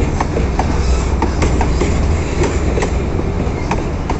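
Loaded freight wagons rolling past close by: a steady low rumble of steel wheels on rail, with repeated sharp clicks and clanks about two to three times a second, easing slightly near the end.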